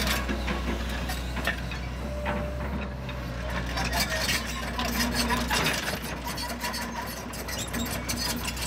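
John Deere 135C compact excavator's diesel engine running steadily, with scattered clicks and clanks while the boom and bucket are moved.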